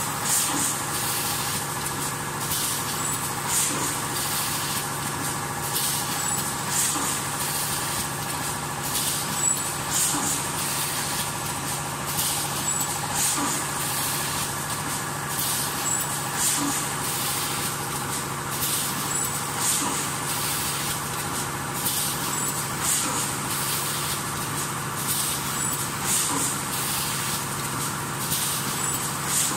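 Automatic leno bag cutting and sewing machine running: a steady mechanical hum, with a short hiss of compressed air about every three and a half seconds and lighter clicks between.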